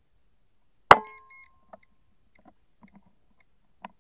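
A single air rifle shot about a second in, a sharp crack with a short ringing tail, followed by a few faint clicks and a small knock near the end.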